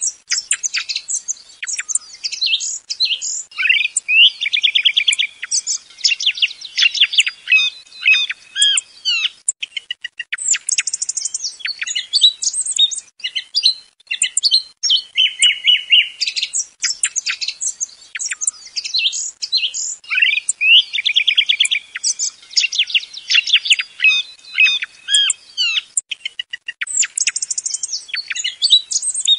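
Song thrush singing: varied phrases of clear whistles and rapidly repeated notes, with short gaps between them. The same stretch of song comes round again about every 16 seconds, as a looped recording.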